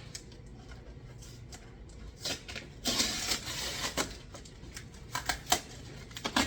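A cardboard box being handled and opened by hand: scattered clicks and knocks, with a short scraping, tearing rush about three seconds in.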